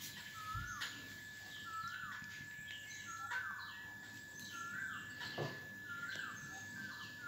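A bird calling repeatedly, a short rising note about every one and a half seconds, with fainter, higher chirps between the calls and a steady thin high tone underneath.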